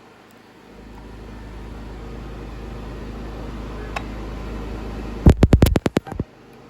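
Handheld ultrasonic rivet welding machine running with a steady low hum and fan-like hiss that builds up about a second in. Near the end a quick run of about eight sharp clicks comes in under a second, and the hum cuts off.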